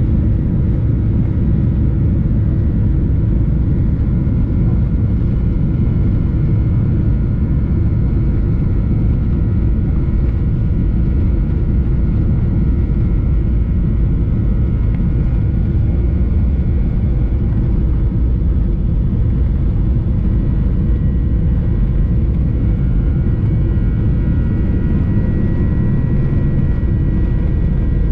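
Boeing 737-800 cabin noise from a window seat beside its CFM56-7B engine while the airliner taxis: a steady low rumble with several faint steady high tones from the engine. One of the tones grows a little stronger near the end.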